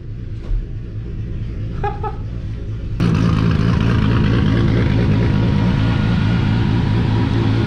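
Drift car's engine running steadily and loudly, cutting in suddenly about three seconds in; before that only a faint low rumble.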